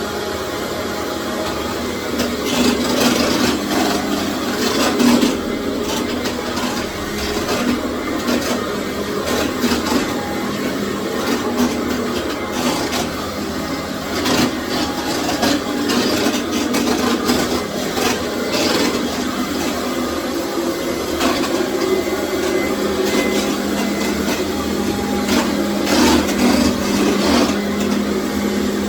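Commercial vacuum cleaner running steadily on a tile floor: a constant motor hum and airflow hiss, with irregular clicks and scraping from the floor head over the tile.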